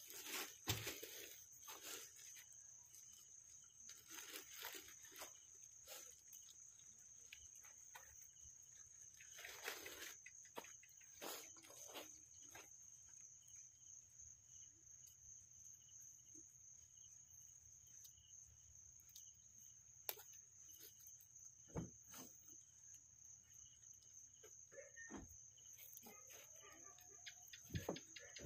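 Near silence with a faint, steady, high-pitched cricket chorus, and a few soft clicks and knocks scattered through.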